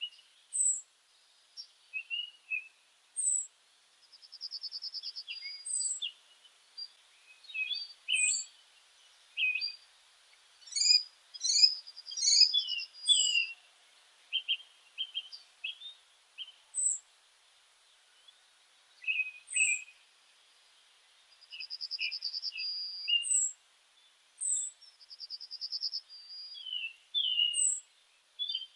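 Songbirds chirping and singing: short high chirps, rapid buzzy trills about a second long, and brief sharp down-slurred whistles, coming in irregular clusters with short pauses between.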